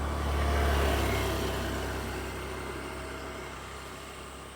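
A motor vehicle passing close by on the road: engine rumble and tyre noise, loudest about a second in, then fading as it moves away.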